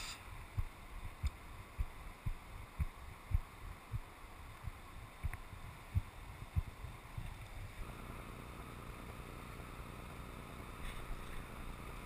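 Mountain river running over stones, a steady rush of water, with irregular low thumps for the first eight seconds or so; after that the rush is steady and a little brighter.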